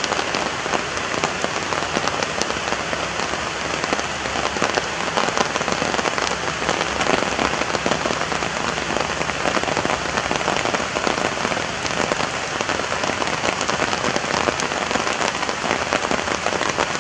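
Steady rain falling, with frequent sharp hits of single drops.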